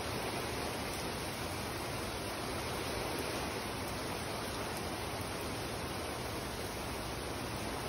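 Heavy rain pouring down onto wet pavement and puddles, a steady, even hiss.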